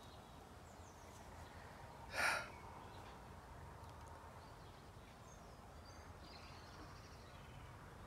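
Quiet outdoor background with one short, breathy exhale, a sigh, about two seconds in.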